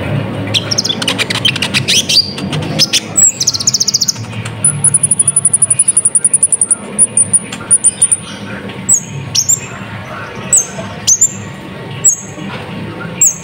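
A sunbird (kolibri ninja) singing: a fast rattling series and chatter, then a long rapid very high trill, then a run of single sharp, falling notes about a second apart. Faint low hum underneath.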